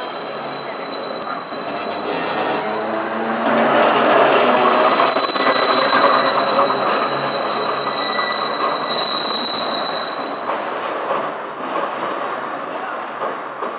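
Steel wheels of a 1923-24 Perley Thomas 900-series streetcar squealing against the rails as it rounds a tight curve, a steady high-pitched tone over the rumble of the car rolling past. The squeal stops about ten seconds in and the rolling noise drops off.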